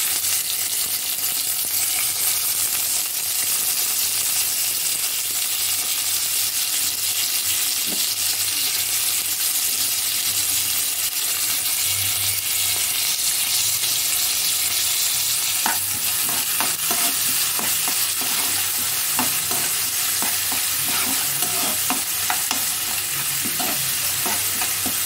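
Chopped onions and cumin seeds frying in hot oil in a metal kadai, a steady sizzle throughout. In the latter part a spoon stirs the onions, scraping and clinking against the pan.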